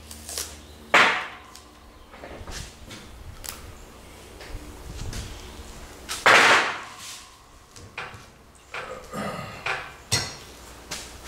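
Steel four-link suspension bars being handled and set down on a metal workbench: several separate knocks and clinks, the loudest about six seconds in, with lighter clicks between.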